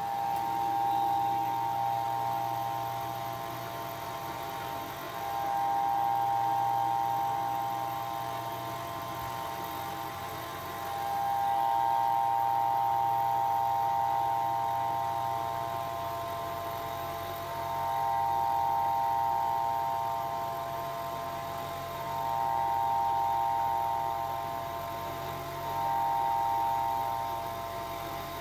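CNC milling machine's end mill side-milling the edge of a cast iron square: a steady whine with several high tones, swelling and fading about every five or six seconds as the cutter works along the edge.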